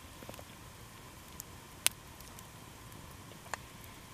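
Wood campfire crackling: a few sharp, sparse pops over a faint steady hiss, the loudest one about two seconds in.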